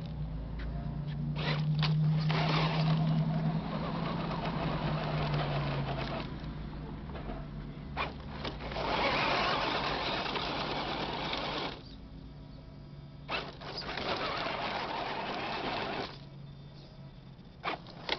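Tamiya CC01 radio-controlled truck's electric motor and gearbox whining as it climbs a loose gravel slope, with three spells of tyres crunching and scrabbling over stones and a few sharp clicks of rocks in between.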